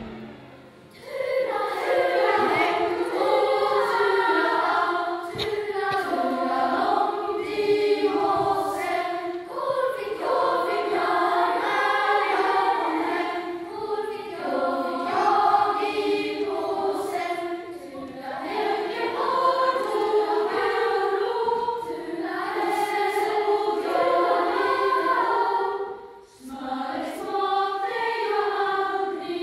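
Large children's choir singing. The singing starts about a second in and breaks off briefly near the end.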